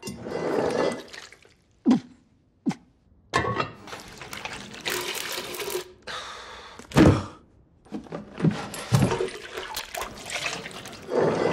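Chamber pots and bowls being emptied and handled in quick succession: liquid sloshing and pouring, sharp knocks of the pots being set down, and a few heavy wet thuds.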